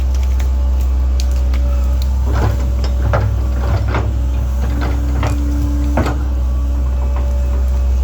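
Link-Belt 2700 excavator running steadily under load, a deep engine hum with a humming tone that swells around four to six seconds in. A run of knocks and cracks from about two to six seconds in as the bucket digs through dirt, rock and roots.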